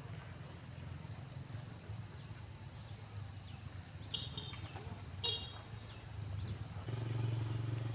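Insect chirping: a high, pulsing trill repeating about five or six times a second, with short breaks. Under it runs a low hum that grows louder near the end.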